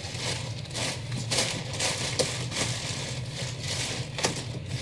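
Packing paper being crumpled and stuffed into a cardboard box: a run of irregular crinkling crunches.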